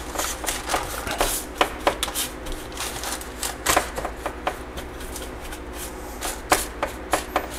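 Gloved hands spreading and pressing a sticky oat-and-nut granola mixture across a parchment-lined baking sheet: irregular light clicks, scrapes and paper rustling, a few to several a second.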